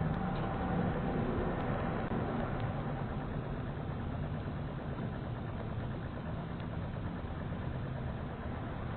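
Steady low rumble and hiss through a doorbell camera's microphone, with a few faint ticks.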